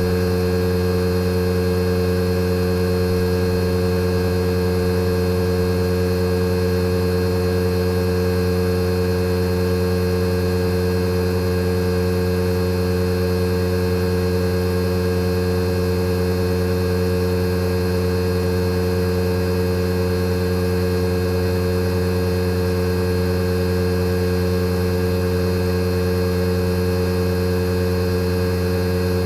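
Fujitsu General AO-C28H outdoor unit's inverter compressor running during a defrost cycle: a steady hum with several constant tones, holding a fixed speed with no change in pitch.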